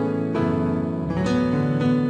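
Instrumental background music, a calm melody of plucked notes over sustained tones.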